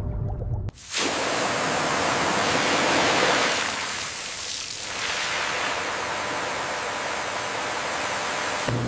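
Steady rushing hiss of water, as from a spray or a strong flow, cutting in abruptly about a second in.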